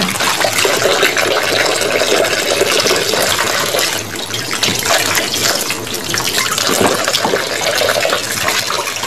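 Kitchen tap running into a stainless steel sink, the stream splashing over ripe guavas and into a plastic tub as they are rubbed clean by hand. A steady rush of water with small uneven splashes.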